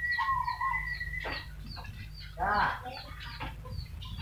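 Chickens clucking, with one loud call about two and a half seconds in, over many short high chirps. A steady whistle-like tone holds for the first second and a half, then stops.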